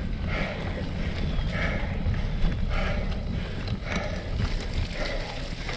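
Wind rumbling on the microphone of a cyclocross bike riding over a wet, muddy course, with the rider's hard breathing about once a second.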